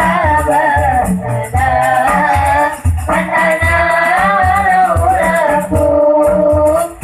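Qasidah sung in Arabic to marawis accompaniment: a voice carries a wavering melody over an even beat of low hand-drum strokes and a high rattling pattern. Brief breaks between sung phrases come about a second in and near three seconds.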